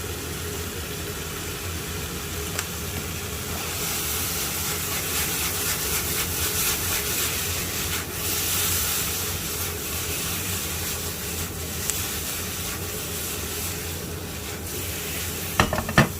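Pork belly frying in a soy-sauce seasoning in a pan: a steady sizzle that thickens a few seconds in, over a low steady hum, with a couple of sharp knocks near the end.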